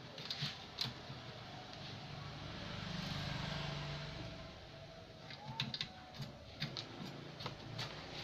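Dust being cleaned out of an opened CRT TV's chassis: scattered light clicks and taps from handling the set and tools, with a smooth swell of hissing noise from about two to four and a half seconds in.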